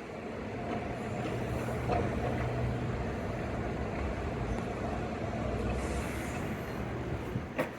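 A vehicle engine running at a steady idle amid street noise, with one sharp click near the end.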